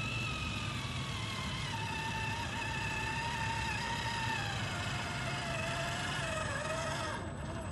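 Electric motor and geartrain of a Boom Racing BRX02 RC scale crawler whining as it drives over dirt, the pitch sagging and falling in the second half as it slows over rough ground. A steady low engine drone runs underneath.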